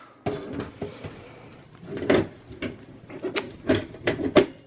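Side cover panel of a small-form-factor desktop PC case being handled and fitted back onto the chassis: a short scrape near the start, then a run of sharp clicks and knocks from about halfway in.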